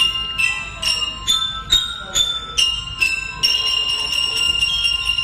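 A melody of bright, bell-like struck metal notes in glockenspiel style, about two a second, that settles onto one long ringing note in the second half.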